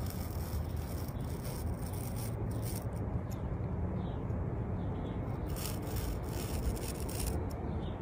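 Hobby knife blade scraping repeatedly across thread wound on a spool, a rough rubbing rasp as the thread frays.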